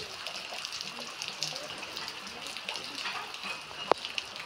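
Heavy rain falling steadily, with a dense patter and the splash and run of water on the ground and roofs. There is a single sharp click just before the end.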